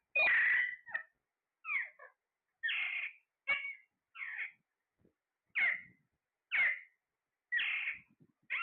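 A parrot giving a string of short squawking calls, about one a second, several of them falling in pitch.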